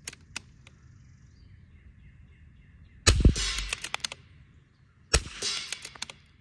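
Two shots from a custom Vudoo bolt-action .22 rimfire rifle, about two seconds apart, about 3 and 5 seconds in. Each shot is followed by about a second of quick metallic clicks as the bolt is worked for the next round.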